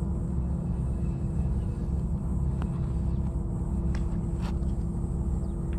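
A steady low rumble with a faint steady hum, and a few light clicks as a baitcasting reel is cranked to retrieve a lure.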